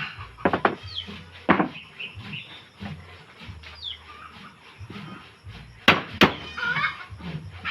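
Several sharp knocks, like blows on wood during assembly work: a quick pair near the start, another about a second later and a loud pair about six seconds in. Chickens and small birds call in the background.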